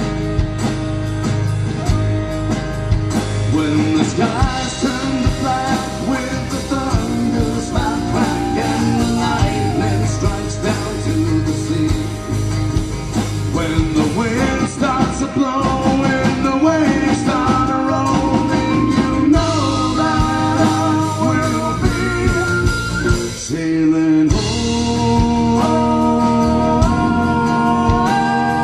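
Live folk-rock band playing an instrumental break: strummed acoustic guitar, bass guitar and drums under a stepping lead melody. About three-quarters of the way through the band stops for an instant, then comes back in with long held notes.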